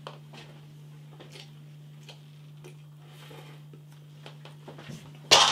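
Faint scattered clicks and ticks of eating noodles with a fork from a pot, over a steady low hum. A short, loud noisy sound comes near the end.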